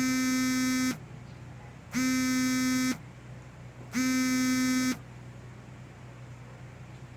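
An electronic buzzer sounds three times, each a low, harsh, buzzy tone about a second long with a second's gap between them, and then stops.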